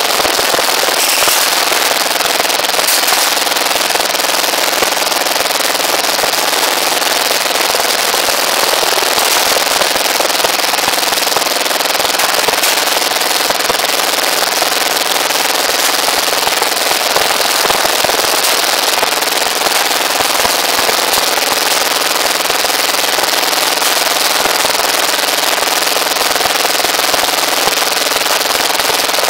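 Rebar bending machine driven by a small engine, running steadily with a fast, even chatter.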